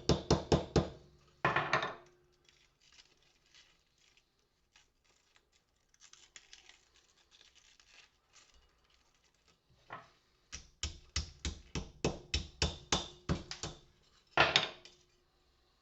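Porcelain lamp holder being smashed and crunched apart to free its brass insides. It comes as quick runs of sharp cracking strikes, about four or five a second, at the start and again later, with scattered small clicks and scrapes between them and one loud crack near the end.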